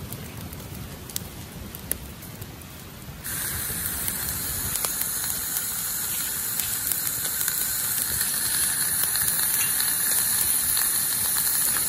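Wood fire crackling in a steel fire pit, with a few sharp pops. About three seconds in, this suddenly gives way to a steak searing in a cast-iron skillet over charcoal: a loud, steady sizzle.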